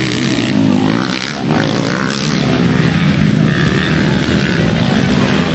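Motocross bike engines running and revving on the track, a steady drone that rises and falls in pitch.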